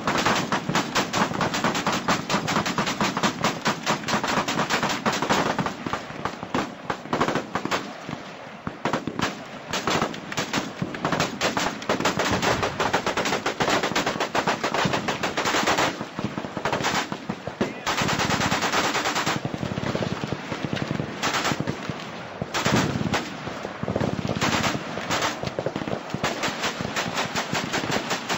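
Several machine guns firing in overlapping automatic bursts, with short lulls between volleys, a battlefield sound effect.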